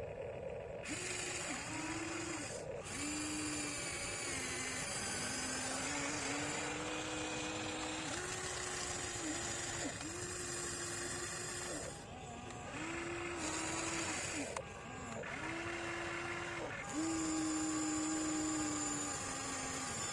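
RC excavator's electric motor and hydraulic pump whining, starting and stopping every second or two with the pitch shifting slightly each time as the boom and bucket are worked.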